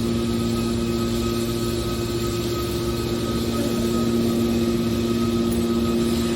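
Steady, unchanging hum of running factory machinery, with a few constant tones over a wash of noise.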